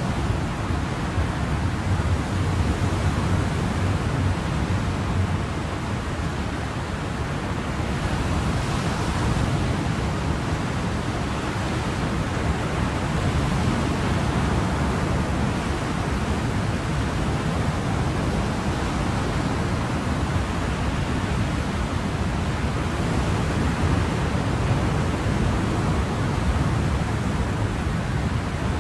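Ocean surf: a steady, continuous wash of waves with a deep rumble and only gentle swells in loudness, no separate breakers standing out.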